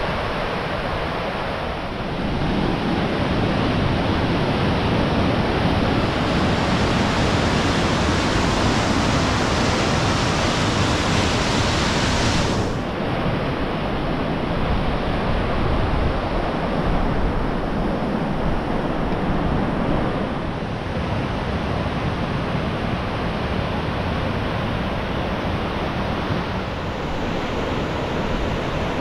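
Steady noise of wind and rushing water in wet, wild weather, with wind buffeting the microphone. It grows louder about two seconds in and changes abruptly about halfway through.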